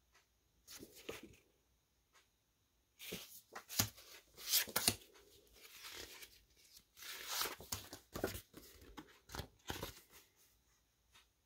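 Clear plastic sleeve crinkling and cardstock journaling cards rustling as they are handled, in irregular bursts of crackle that are busiest through the middle.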